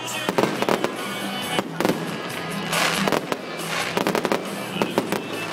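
Aerial fireworks bursting in rapid succession: a dense run of sharp bangs and crackles, with music playing underneath.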